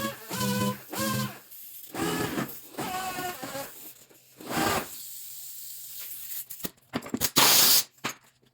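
Body filler on a steel truck door being worked by hand: a series of short squeaky scraping strokes in the first few seconds, then rubbing strokes, the loudest a harsh hissing stroke near the end.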